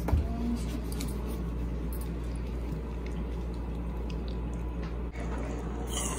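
Jaggery melting in a little water in a steel saucepan on the stove, heating toward a foamy boil for ladoo syrup: faint bubbling and ticking over a steady low hum.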